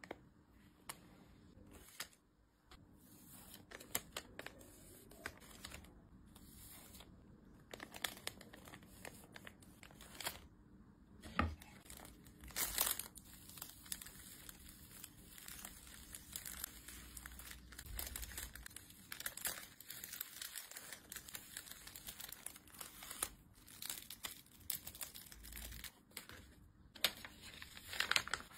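Plastic bags and paper packaging crinkling and rustling as they are handled, pressed flat and folded, with irregular crackles and a few sharper, louder crackles about halfway through.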